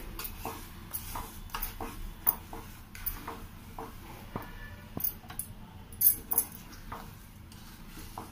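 Wooden spatula scraping and knocking against an aluminium pot while stirring grated jaggery and sugar with water as it melts: irregular strokes with a few sharper knocks, the strongest about six seconds in.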